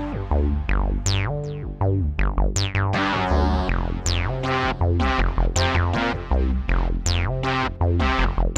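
Electronic background music: synthesizer notes over a deep bass line, with sweeping falling accents about twice a second.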